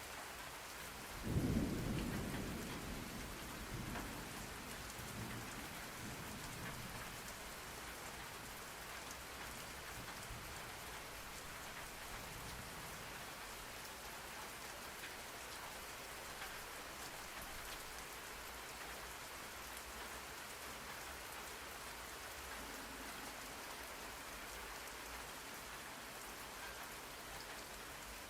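Steady rain, with a sudden clap of thunder about a second in that rumbles away over the next few seconds.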